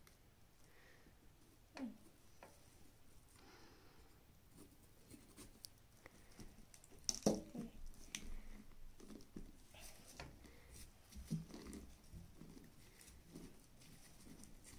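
Small knife cutting around the lid of a whole pumpkin, faint scraping and crunching of the blade through the rind with scattered small clicks, and a louder knock about seven seconds in.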